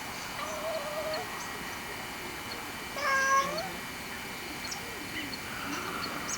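Domestic cat meowing: one loud, drawn-out meow about three seconds in, with a fainter short call near the start.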